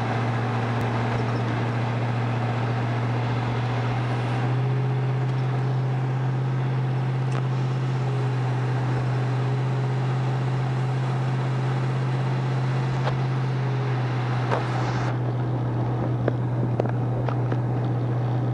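1970 Dodge Charger R/T's 440 Six Pack V8 running at a steady cruise, a constant low drone that gets slightly fuller about four seconds in, with a few faint clicks near the end.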